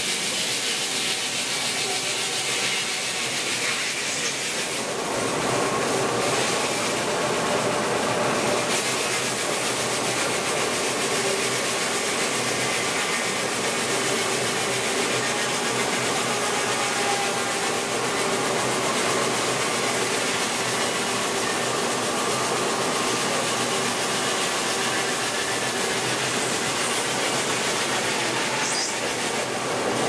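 Steam-driven vintage sawmill sawing a log on its travelling carriage: a steady, dense rush of the saw in the timber with a held tone, growing fuller about five seconds in.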